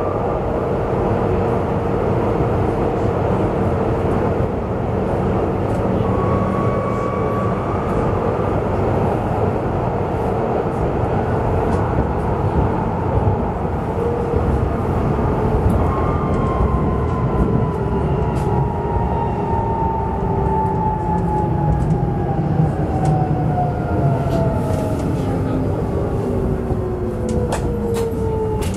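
Duewag B80D light-rail car on the move: a steady rumble of wheels and running gear with a constant whine. From a little past halfway, the motor whine falls steadily in pitch as the car slows down.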